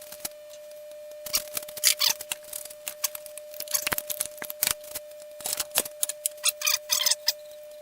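Copper plumbing fittings being scrubbed clean with an abrasive before soldering: quick, uneven scraping strokes over a steady faint hum.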